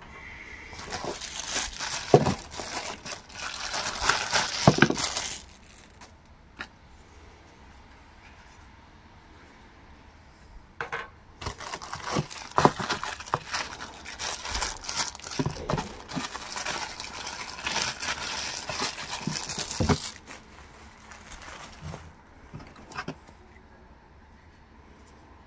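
Plastic bags crinkling and rustling as wrapped parts are handled and pulled out of a cardboard box with a moulded pulp insert, with a few light knocks of plastic against the packaging. The rustling comes in two spells: from about a second in for about four seconds, and again from about eleven seconds for about nine seconds.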